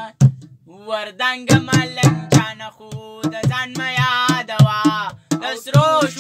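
A young man singing a wavering, held melody, accompanied by hand-drumming on improvised drums: a large plastic container and an upturned aluminium pot. The voice breaks off briefly near the start, then resumes over steady drum strokes.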